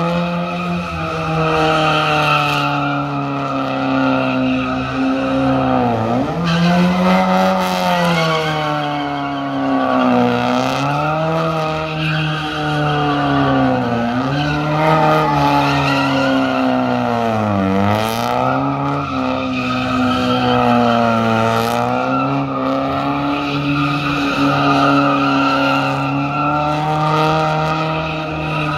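A car doing donuts with its tyres squealing continuously. The engine is held at high revs, dipping and climbing back about every four seconds as the car circles.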